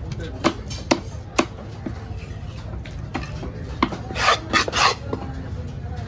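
A heavy fish-cutting knife chops three times on a wooden log block, about two strokes a second, then, about four seconds in, three rasping scrapes as the cut fish pieces are swept off the block.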